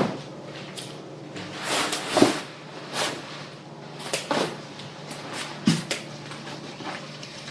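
Household things being handled and put away while tidying a room: a string of knocks, bumps and rustles, about six in all. The sharpest come about two seconds in and just before six seconds.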